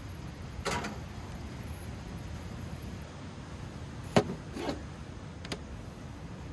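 A large cleaver-style knife cutting a potato on a plastic cutting board: one sharp knock of the blade on the board about four seconds in, then a softer cut and a light tap. A short scraping sound comes about a second in.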